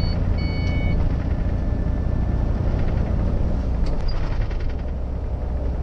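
Diesel engine of an Iveco 190 truck pulling hard at full throttle up a hill, heard inside the cab, with the loose, shaky cab rattling. Two short electronic beeps in the first second.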